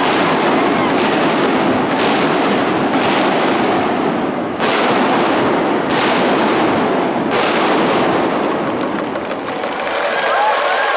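Victory fireworks going off in a series of loud bangs, about one every second or so, each one ringing out and fading. The bangs sit over a steady wash of noise and stop about three-quarters of the way through.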